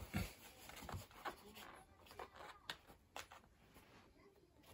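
Faint scratchy rustles and light taps of a cat's paw swiping at a toy dragged across a tatami mat, in short scattered strokes that thin out towards the end.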